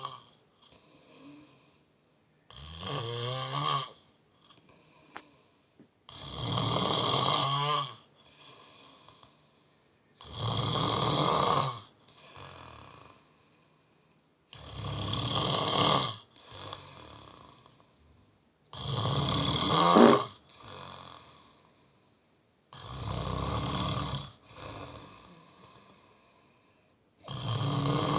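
A person snoring in a slow, regular rhythm: a loud snore about every four seconds, each lasting a second or two and followed by a much fainter breath.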